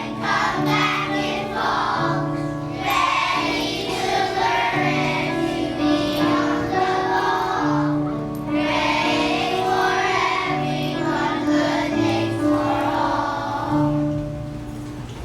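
A group of children singing together over instrumental accompaniment, fading out near the end.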